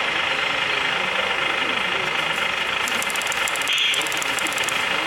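Scale RC lorry's engine-sound module playing a diesel engine running steadily through its speakers. A fast, regular high ticking joins in for about two seconds near the end.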